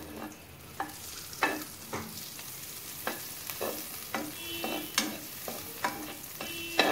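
Butter sizzling as it melts in a nonstick wok, with a spatula scraping and knocking against the pan at irregular moments.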